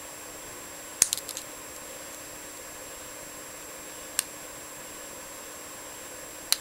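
Lock pick working inside a Best padlock's D-keyway core, making a few sharp metallic clicks: a quick cluster about a second in, then single clicks near the middle and near the end, over a faint steady hiss.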